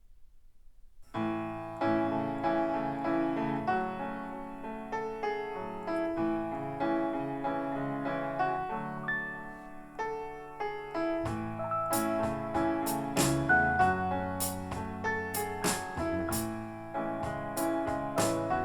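Recorded music played through MarkAudio Sota Cesti MB hi-fi loudspeakers and picked up in the room: a piano-led instrumental intro that starts about a second in. Crisp high percussive hits join about halfway through.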